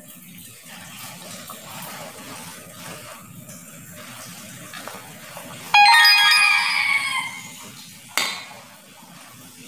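A sudden metallic clink about six seconds in that rings on for over a second: the stainless-steel idli plate and steamer struck while batter is ladled into it. A shorter sharp knock follows about two seconds later, over a low steady hum.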